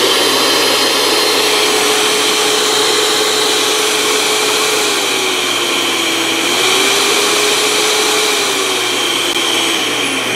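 HOMEJOY 5-speed electric hand mixer running unloaded with its beaters spinning in the air, a loud steady motor whine at high speed after the turbo button is pressed. In the second half the pitch dips, rises again and steps down as the speed dial is turned, and it starts to wind down near the end.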